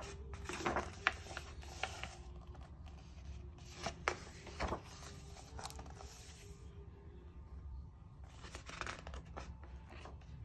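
Large paper pages of a graphic novel being turned by hand: several faint swishing, rustling page turns with a few sharp clicks among them.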